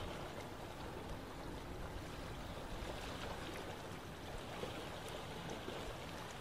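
Faint, steady outdoor background noise, with no distinct event standing out.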